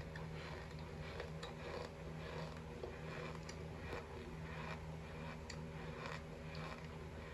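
Raw cornstarch being chewed and bitten close to the microphone: squeaky, crackly crunching in many small irregular clicks, over a steady low hum.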